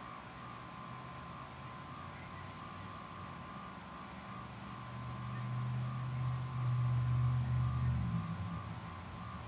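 A low hum grows louder from about halfway, then stops abruptly near the end. Underneath, a faint high tone pulses about twice a second.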